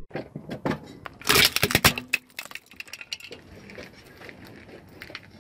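A blue-glazed ceramic object crushed under a car tyre on gravel: a burst of sharp cracks and clinking shards about a second in, then smaller crunches and tinkles of breaking pieces that fade away.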